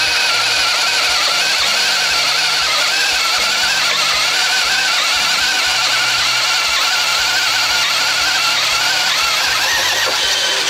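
DeWalt DCD996 20V brushless hammer drill in speed 1, boring a 1¾-inch Irwin self-feeding bit through a 4x4. The motor and gearbox run continuously under load, and the pitch wavers up and down as the bit pulls itself through the wood.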